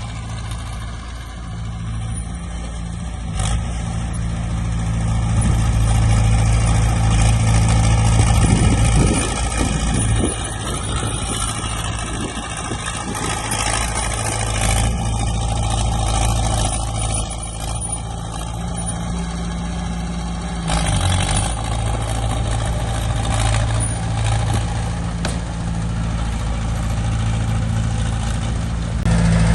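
Heavy diesel engine of earthmoving machinery running steadily, its pitch shifting a few times.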